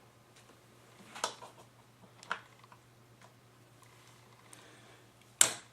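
Flathead screwdriver tip clicking and scraping against a laptop's plastic screen bezel while prying off the small rubber screw-cover dots. There are a few light clicks, the loudest near the end, over a faint steady hum.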